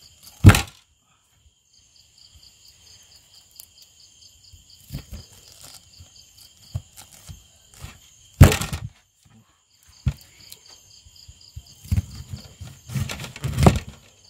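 Kitchen knife chopping through a sweet corn cob onto a plastic cutting board: a few sharp thunks, loudest about half a second in and again past the middle, with a quicker run of cuts near the end. Crickets chirp steadily behind.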